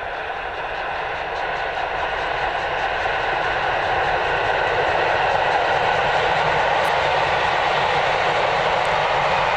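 Steam locomotive and its train approaching at speed, a steady rushing noise that grows steadily louder as it nears.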